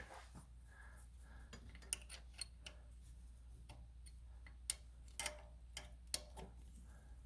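A few light metallic clicks and taps, scattered and irregular, from hands and a tool working the metal lathe's carriage lock, over a faint low hum.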